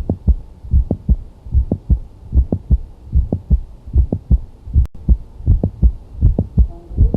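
Heart sounds on auscultation: steady lub-dub beats a little over once a second, with an extra sharp click in mid-systole between the first and second heart sounds. The mid-systolic click is the classic sign of mitral valve prolapse.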